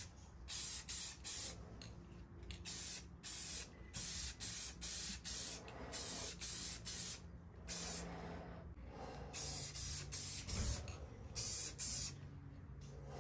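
Aerosol spray-paint can hissing in short bursts, roughly one or two a second, with a few longer pauses, as black paint is sprayed onto a wheel.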